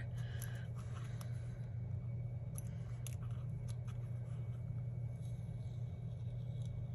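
Faint small ticks and light paper rustle as a planner sticker is peeled up and repositioned with a pointed craft tool, over a steady low hum.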